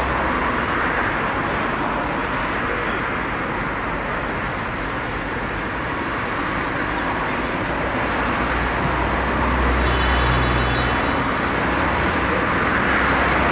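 Steady open-air noise at a football pitch: a wash of distant voices and traffic-like rumble, with a deeper rumble swelling about nine to eleven seconds in.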